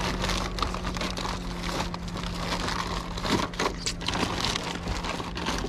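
Paper and plastic sacks rustling and crinkling, with scattered small knocks, as they are pushed and packed into a car's trunk.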